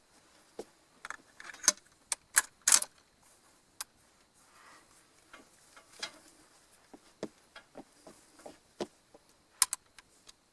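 Irregular sharp clicks and light metallic rattles, about twenty scattered unevenly, the loudest a few seconds in and again near the end.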